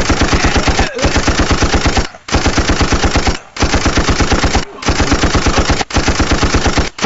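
Loud, rapid rattle of bangs, about eight a second, like machine-gun fire. It comes in bursts about a second long, broken by brief pauses.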